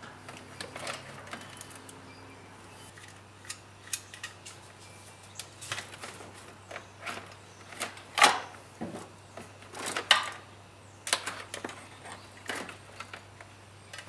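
Scattered clicks, knocks and light rattles of plastic dashboard trim panels being handled and pried loose in a 2008 Mitsubishi Lancer, with a couple of louder knocks about eight and ten seconds in, over a steady low hum.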